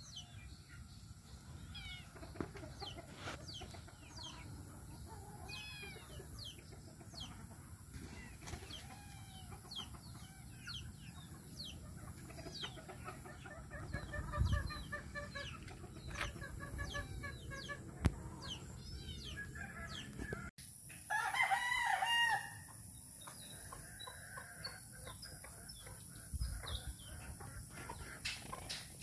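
Free-ranging chickens clucking and calling, with many short calls throughout. A rooster crows once, louder than the rest, about two-thirds of the way in.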